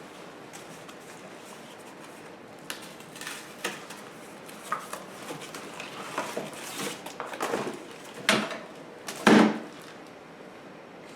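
Scattered knocks, clatters and rustles of mower parts and packaging being handled during unboxing and assembly. The two loudest knocks come about eight and nine seconds in.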